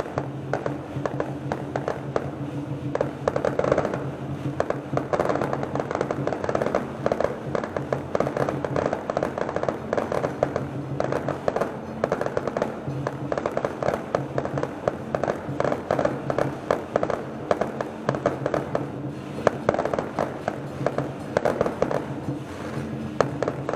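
Fireworks crackling in a dense, rapid, unbroken stream of small bangs, with music playing underneath.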